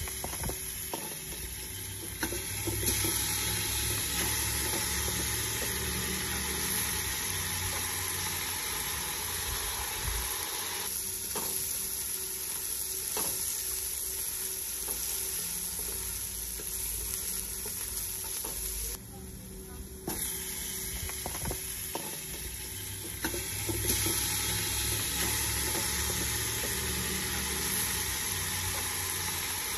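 Chopped onion sizzling in hot oil in a stainless steel stockpot, with a wooden spoon stirring and scraping against the pot. Pieces of deer meat are spooned in to fry. The sizzle grows louder about three seconds in and again near the end.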